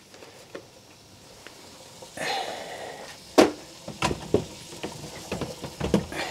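Wire oven rack and baking tray knocking and clattering against the metal of a small gas oven as they are slid in: one sharp knock a little over three seconds in, then a run of lighter knocks and rattles.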